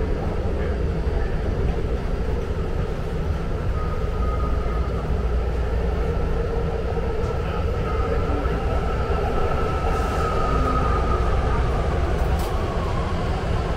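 BART rapid-transit train running along the track, heard from inside the passenger car: a steady rumble of wheels on rail. A faint high tone rises in and holds for several seconds in the middle.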